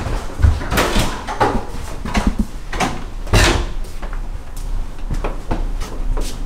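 Footsteps along a hallway, one about every half second to second, mixed with the rustle of a carried bag.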